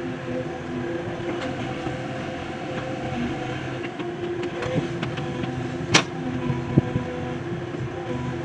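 JCB excavator's diesel engine running steadily under work, with a few sharp metallic knocks, the loudest about six seconds in and a smaller one just after.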